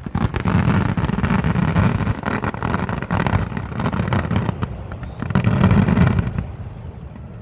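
Fireworks display: a rapid barrage of shell bursts and crackling, densest in the first three seconds and again about five to six seconds in, then thinning out near the end.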